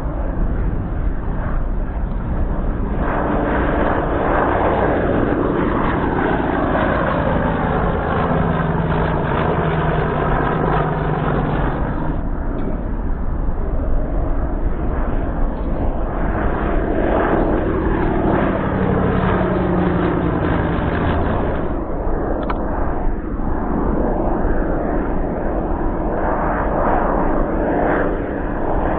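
Large-scale radio-controlled warbird models with radial engines flying low passes. The engine drone rises and falls in pitch as each plane sweeps past, over several passes.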